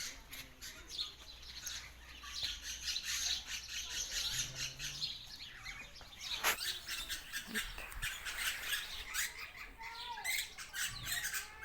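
Mixed flock of parrots and lorikeets chirping and squawking, many overlapping high calls, with one sharp loud squawk about six and a half seconds in.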